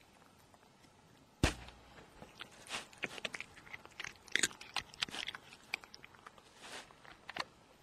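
A cat crunching dry cat treats: quiet at first, then a sharp crunch about a second and a half in, followed by a run of irregular crunching bites and chews.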